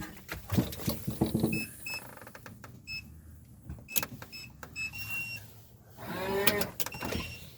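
Electronic door keypad lock beeping as its buttons are pressed: several short beeps at one pitch, then a longer beep about five seconds in. Clicks and knocks from handling the door come around the beeps.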